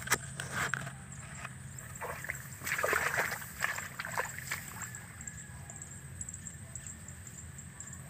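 Irregular splashing and rustling of someone wading through a flooded rice paddy, loudest about three seconds in, over a steady low hum.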